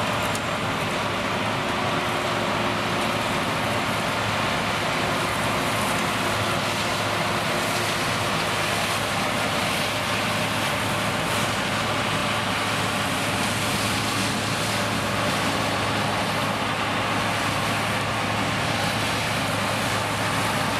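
Claas Lexion 560 combine harvester running steadily while threshing soybeans: engine and threshing machinery under load, a constant low drone with an even hiss over it.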